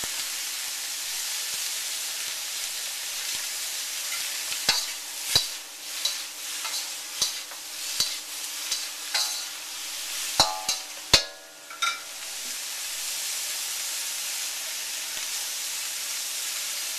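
Vegetables and roast pork sizzling steadily in a hot wok. From about five to twelve seconds in, a spatula clacks and scrapes against the wok a dozen or so times as the food is stir-fried.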